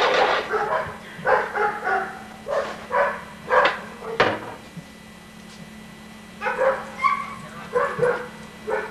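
Dog barking in two runs of short barks, with a pause of about two seconds between them and a sharp click about four seconds in.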